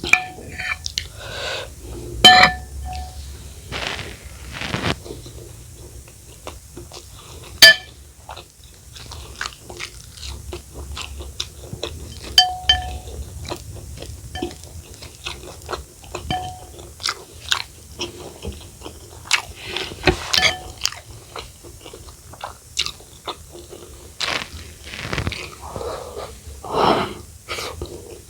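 Close-miked chewing and crunching of fried rice, with wet mouth clicks and occasional sharp taps that ring briefly, like a spoon against a plate.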